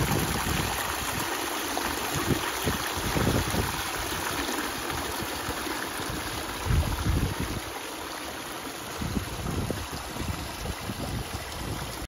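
Water of a rock pondless waterfall splashing and trickling over boulders in a steady rush. Low rumbles of wind on the microphone come and go, the strongest about seven seconds in.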